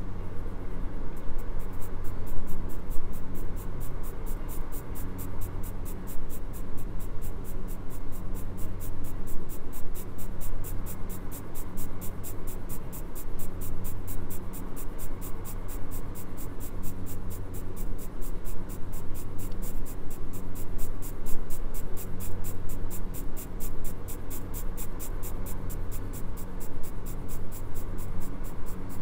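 Graphite pencil shading on drawing paper: quick, even back-and-forth strokes, over background music.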